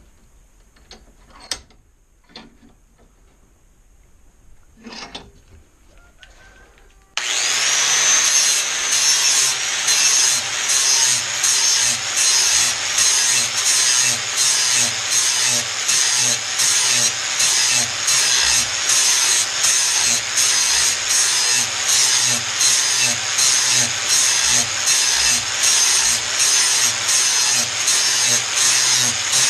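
A few faint knocks. About seven seconds in, an angle grinder with a 40-grit flap wheel spins up with a short rising whine and then grinds a steel lawn tractor mower blade edge steadily and loudly, pulsing about twice a second.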